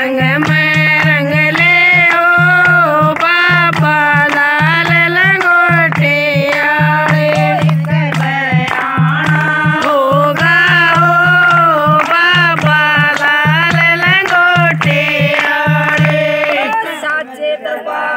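Women singing a Haryanvi devotional bhajan over a steady hand-drum beat. Near the end the drum stops and the singing breaks off.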